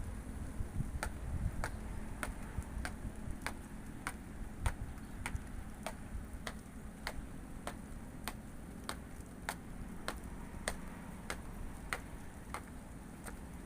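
Marching footsteps in step: a sharp, even stamp about one and a half times a second, keeping a steady slow-march tempo.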